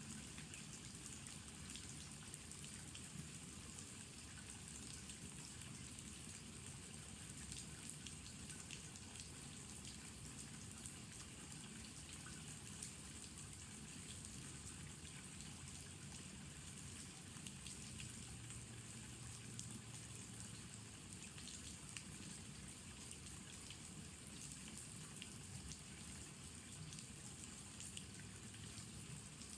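Steady spring rain falling, a continuous hiss with many small individual drops ticking on surfaces.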